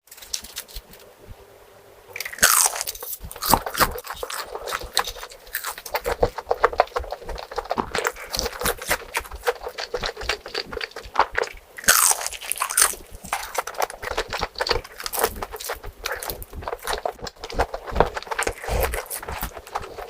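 Close-miked eating: a person biting and chewing crunchy food, with dense crisp crackling that starts about two seconds in after a quieter opening.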